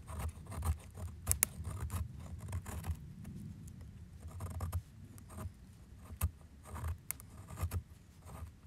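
TOPS Tanimboca puukko knife carving feather-stick shavings down a split piece of wood: repeated uneven scraping strokes of the blade, with a few sharp clicks.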